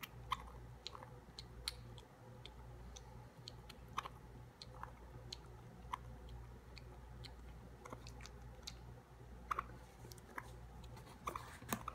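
Baby raccoon, about three weeks old, suckling at a milk bottle's nipple: faint, irregular wet clicks and smacks, roughly one or two a second, with a small cluster near the end.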